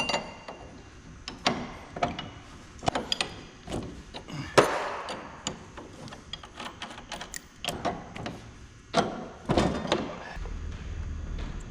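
Tools and metal parts knocking and clanking in an irregular string of sharp impacts during repair work. A steady low hum sets in near the end.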